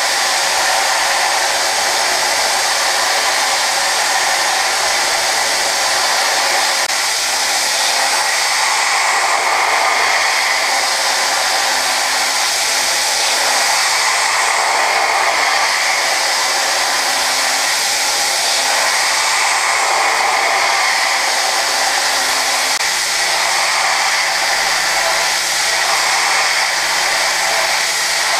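Okuma GENOS M560-V vertical machining centre hard-milling S7 tool steel at 56 Rc with an end mill: a steady rush of air blowing at the cutter over the spindle's running tone, swelling and easing gently as the tool works across the floor. A low steady hum joins about three quarters of the way through.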